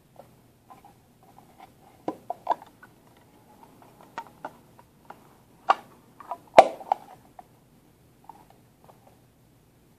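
Small hard plastic toys being handled: a little hinged plastic case clicked open and shut, with scattered clicks and taps, the loudest about two-thirds of the way through.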